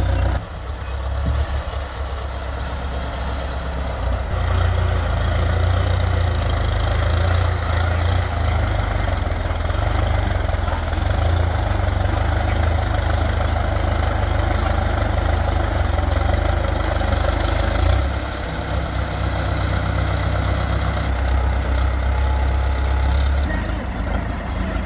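Heavy engine of road-repair machinery running steadily with a deep, continuous rumble, easing briefly twice.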